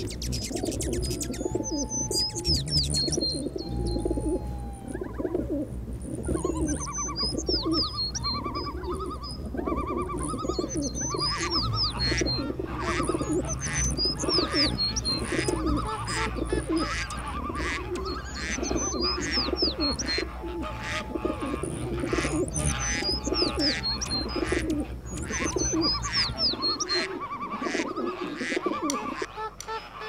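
Recorded bird chorus: many birds calling over one another, with repeated low calls beneath quick high chirps. A low hum under the chorus stops near the end.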